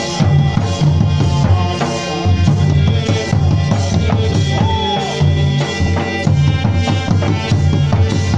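Live Jhumar folk music: two-headed barrel drums played by hand beat a steady, driving rhythm, with a melody line carrying a few sliding notes above it.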